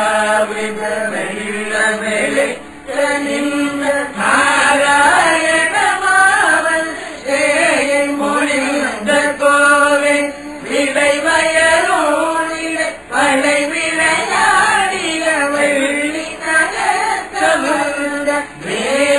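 Voices chanting a Tamil devotional hymn to a melody, in long sung phrases with brief breaks between them.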